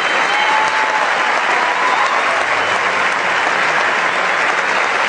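Steady applause from a large crowd, with a few faint drawn-out tones, such as whistles or voices, over the clapping.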